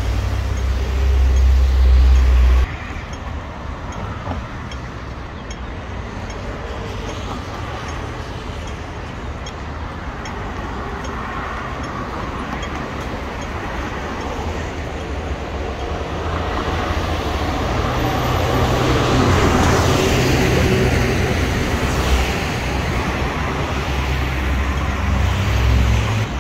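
Road traffic on a busy city street, with vehicles passing steadily. A deep rumble at the start cuts off suddenly about two and a half seconds in, and one vehicle passes louder and closer about two-thirds of the way through.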